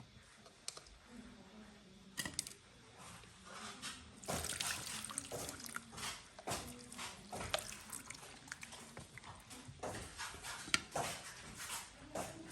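Kitchen handling sounds: irregular clinks, knocks and rustles, with some splashing or pouring of liquid.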